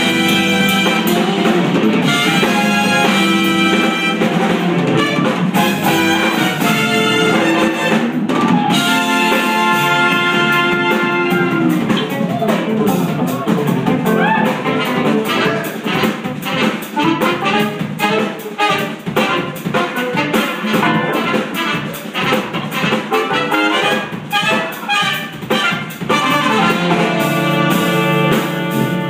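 Live jazz-fusion band playing: saxophone and trumpets over drum kit, percussion, keyboards, electric guitars and bass. The horns hold long chords for the first dozen seconds, give way to a busier rhythm-section passage, and come back near the end.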